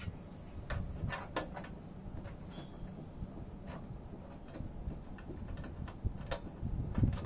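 Scattered small metal clicks and taps as the slow-motion control rod is fitted and its fittings on a small reflector telescope's tube are handled, over a low steady hum. The loudest clicks come about a second in and near the end.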